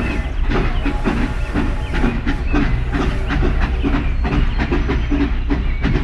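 Train running on rails: a steady, rhythmic clatter of wheels with a hiss.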